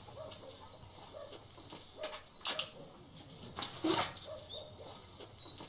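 Quiet ambience with scattered short, high bird chirps and a few soft knocks or rustles, the most noticeable about four seconds in.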